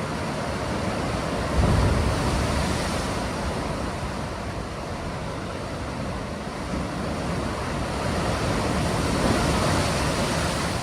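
Ocean surf rushing, with wind gusting on the microphone; the strongest gust comes about two seconds in.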